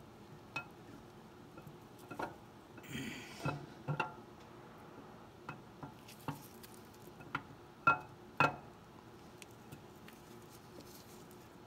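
Light metallic clicks and taps of a camshaft being slid by hand through the cam bearings into an engine block, with two sharper knocks about eight seconds in, half a second apart, and a brief rustle around three seconds in.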